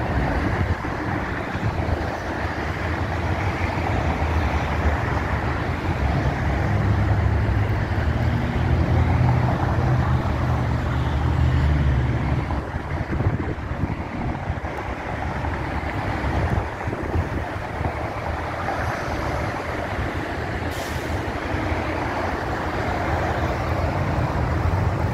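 Steady freeway traffic noise from vehicles passing on the I-5, with a deeper engine rumble that swells from about six seconds in and eases off around twelve seconds.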